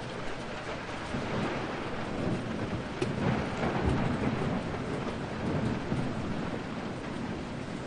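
Steady rain falling, with a roll of thunder: a sharp crack about three seconds in, then low rumbling that swells and fades over the next couple of seconds.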